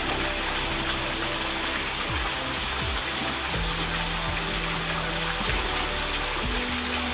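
Steady rush of a small waterfall splashing into a pool. Under it runs a low hum that glides to a new pitch several times.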